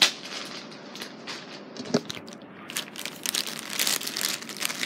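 A thin plastic Happy Meal toy bag crinkling as it is handled and opened: a sharp click at the start, sparse crackles, then denser crinkling from about three seconds in.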